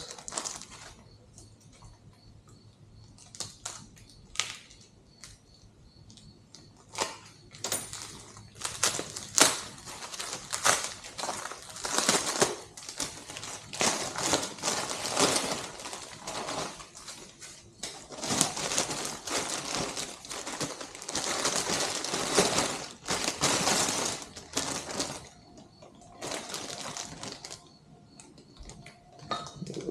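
Rustling, scraping and light clicks in irregular bursts as the scooter's swing arm extension kit parts are handled.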